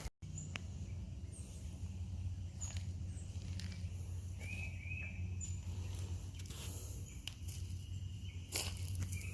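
Outdoor ambience: a steady low hum with scattered brief high bird chirps, and a few short rustling knocks near the end.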